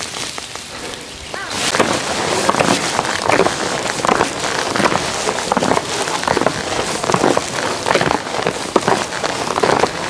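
Footsteps in chain spikes crunching up snow-covered stone steps, starting about a second and a half in and going on as a dense run of crunchy steps.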